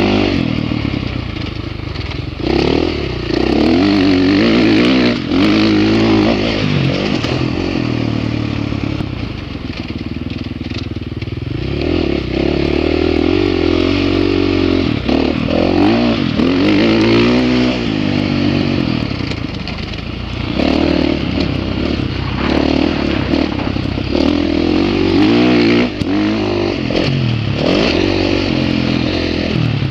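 Motocross dirt bike engine heard from on board while riding a track, its pitch repeatedly rising and falling as the throttle is opened and closed.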